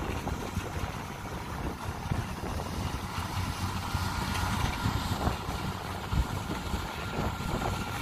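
Kubota DC70 combine harvester's diesel engine running steadily under load as the machine cuts and threshes rice, heard from a distance, with wind buffeting the microphone in a gusty low rumble.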